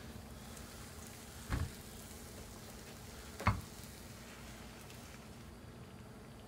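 Faint, steady sizzling hiss of cooking, with two soft knocks of the frying pan and chopsticks, about one and a half and three and a half seconds in, as an omelet is slid from the pan onto a plate.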